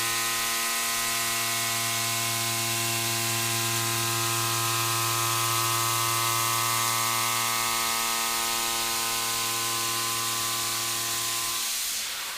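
Indexable square shoulder milling cutter running in a cut on metal: a steady pitched whine with many even overtones over a strong hiss. The whine cuts off shortly before the end.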